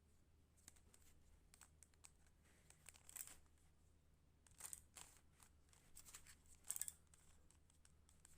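Plastic Rubik's cube being twisted by hand: faint, scattered clicking scrapes as its layers turn, the clearest about three seconds in, near five seconds and near seven seconds.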